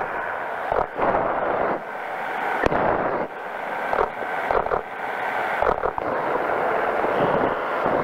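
Powered parachute's engine running steadily in flight, broken by several brief dips and a few sharp knocks.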